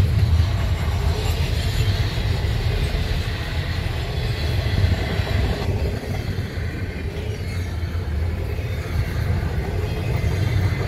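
Double-stack intermodal train's container well cars rolling past, a steady rumble of steel wheels on the rails.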